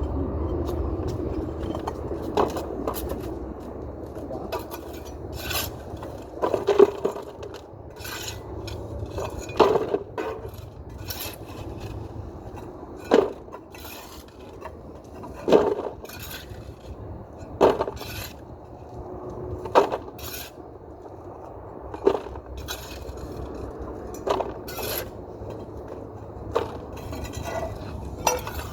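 A hand tool scraping over tile or mortar, with a sharp knock or tap about every two seconds.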